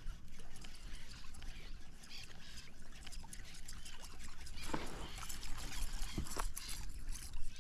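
Small waves lapping against a plastic kayak hull, with irregular light clicks and taps and a few louder knocks about five and six seconds in.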